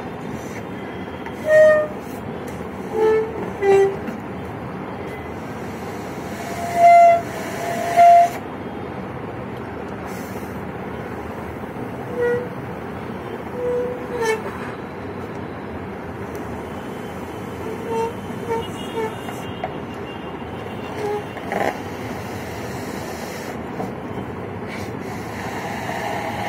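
A yellow latex balloon being blown up by mouth, giving short squeaky honks every few seconds, the loudest two close together about seven seconds in, over a steady hiss.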